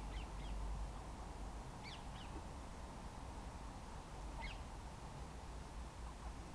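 Short, high bird chirps in three brief clusters: a few at the start, two about two seconds in, and one more past the middle. Under them is a low, steady rumble.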